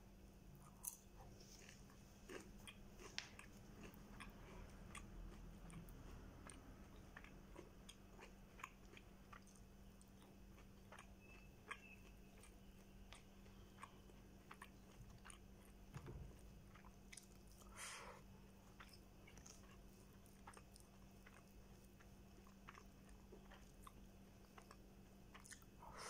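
Faint, close-miked chewing and wet mouth clicks of a person eating rice and fried chicken by hand, with one louder mouth sound about two-thirds of the way through. A steady low hum runs underneath.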